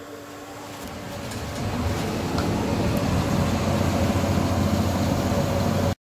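Candy Superautomatic 98 washing machine running, its drum turning with wet laundry: a motor hum and a churning rumble that grow louder over the first two seconds, then hold steady and cut off suddenly near the end.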